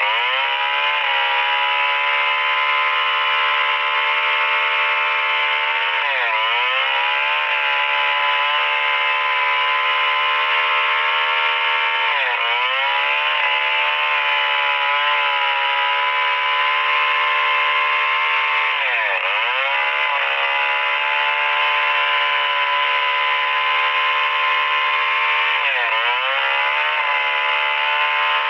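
STIHL 070 two-stroke chainsaw running at full throttle while ripping a Merbau hardwood log lengthwise. Its engine note sags sharply and climbs back about every six to seven seconds as the chain bites harder under load.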